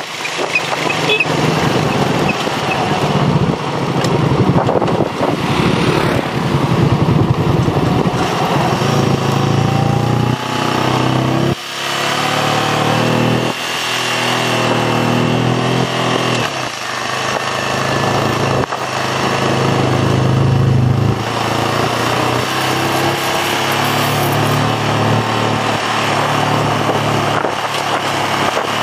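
Motorcycle engine running while riding, its note rising and falling with the throttle and dropping away briefly several times.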